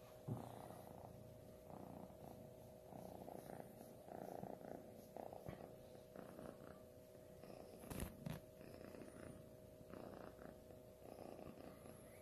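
Kitten purring faintly, swelling and easing about once a second with its breathing, over a steady low hum. Two soft knocks, one just after the start and one about eight seconds in.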